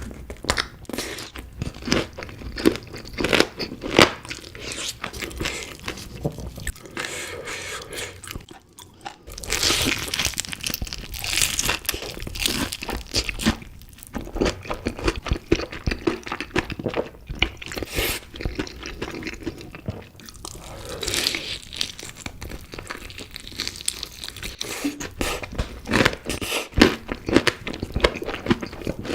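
Close-up crunching and chewing of crispy chicken pieces, a dense run of irregular crackles and bites, with a short pause about nine seconds in.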